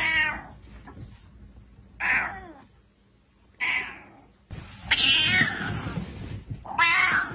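Grey tabby cat giving angry meowing yowls, about five calls in a row, the longest about a second and a half, from about five seconds in.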